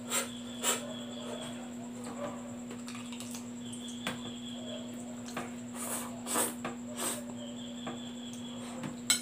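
A person slurping and chewing spicy instant noodles in short, wet bursts, with a couple of sharp clicks of a fork against the plate near the end. A steady low hum runs underneath.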